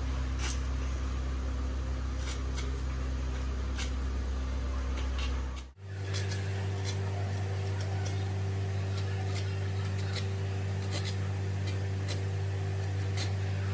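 A steady low machine hum, like a fan or small motor, with faint scattered light clicks over it. It drops out for a moment about six seconds in and comes back at a slightly different pitch.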